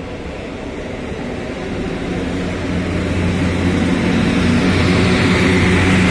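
EP09 electric locomotive hauling an express passenger train through the station, growing steadily louder as it approaches and draws level: a steady low hum over a rising rush of wheels on rail.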